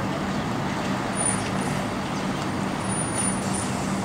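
Diesel bus engine running with a steady hum as the bus pulls slowly forward, with general road traffic noise around it.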